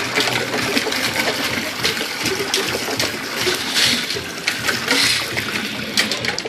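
A heavy stream of water pouring steadily from a rope pump's 1-1/2-inch PVC outlet pipe and splashing into a half-filled plastic tote bin.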